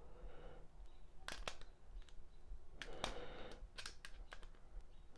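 Scattered small clicks and taps from hand work on a wall light switch: a screwdriver, the switch and its ground wire knocking lightly together as the wire is fitted under the ground screw. The clicks come in pairs, about a second and a half in, at about three seconds, and again near four seconds.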